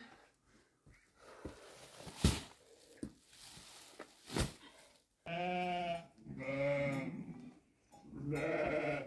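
Sheep bleating three times in a row, each call about a second long, from about halfway in. Before that, two sharp knocks, the first the loudest sound of all.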